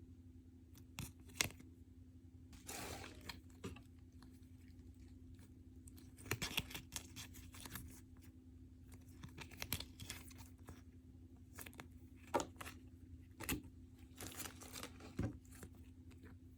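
Mail packaging being opened and handled: paper and plastic tearing and crinkling in short irregular spells, with scattered sharp clicks and taps.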